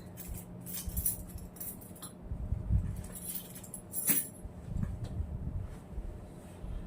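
Light metallic clinks and handling noises with a few soft knocks, as metal sound-therapy instruments are picked up and readied; the sharpest click comes about four seconds in.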